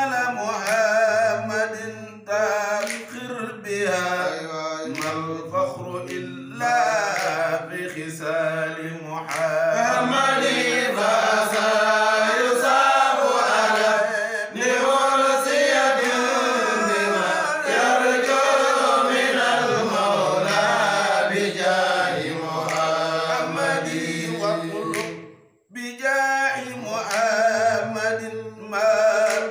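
Unaccompanied male voices chanting a religious song, a lead singer carrying the wavering melody and other men's voices layered in at times. The chant breaks off briefly about 25 seconds in, then resumes.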